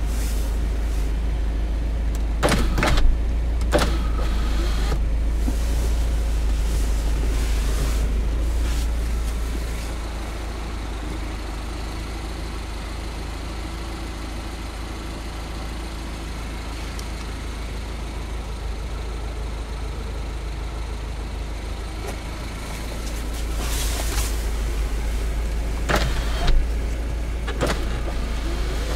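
Mini Cooper S 1.6 turbo running, a steady low rumble that eases off for about thirteen seconds in the middle and then builds again. A few sharp knocks sound a few seconds in and again near the end.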